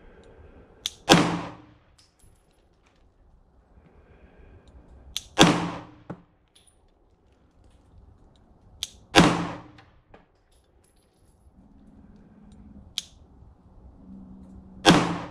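Glock 19X 9mm pistol fired four times in slow, aimed fire, each loud shot several seconds apart with a short ringing echo.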